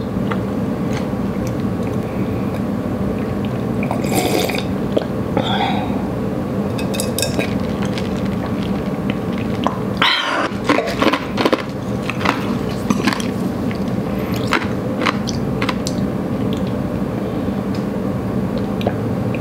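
A person drinking water from a glass: swallows and small mouth and glass clicks come now and then, with a couple of louder gulps, over a steady room hum.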